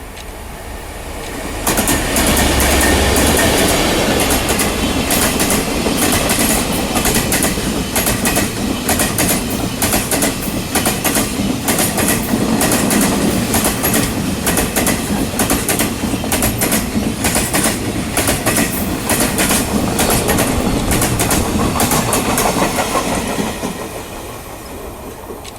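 A long freight train hauled by a diesel-electric locomotive passes at speed. The locomotive's low engine rumble comes in about two seconds in, then the wagons clack over the rail joints in a steady rhythm for about twenty seconds before the sound fades near the end.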